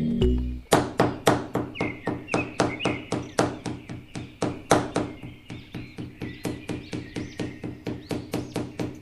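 Rapid, even tapping strikes, about four to five a second, like a small hand tool working on a model build, with faint music underneath.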